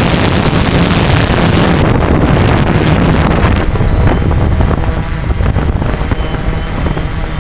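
Quadcopter's motors and propellers humming steadily, with wind rushing over the onboard camera's microphone. The wind noise is heavy at first and eases about halfway through, leaving the motor hum plainer.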